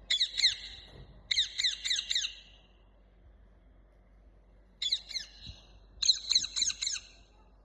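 Parrot squawking in four bursts of quick, harsh, downward-sliding screeches: two bursts at the start, then two more after a pause of a couple of seconds.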